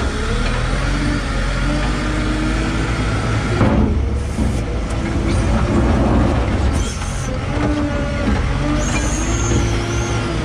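JCB 531-70 telehandler's diesel engine running under load, heard from inside the cab, its pitch rising and falling as the revs change. There is a sharp knock about four seconds in and a brief high whine near the end.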